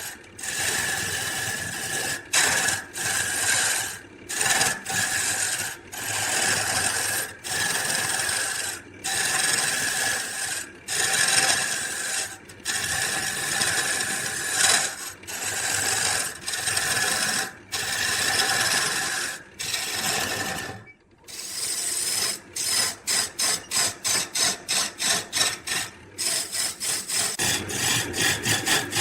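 Repeated rasping strokes of a tool working wood, in runs a second or two long with short breaks, quickening to about two or three short strokes a second near the end.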